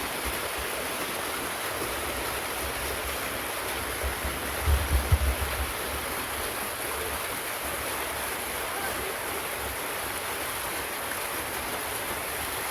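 Steady rushing of a waterfall, with a brief low rumble about five seconds in.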